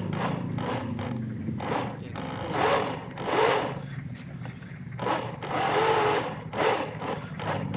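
Remote-control model boat under way: the low steady drone of its DC 775 electric motor under loud, irregular rushing bursts.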